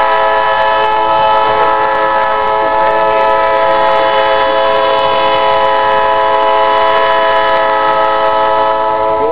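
Locomotive air horn sounding one long, loud, steady blast of several tones at once, cutting off near the end.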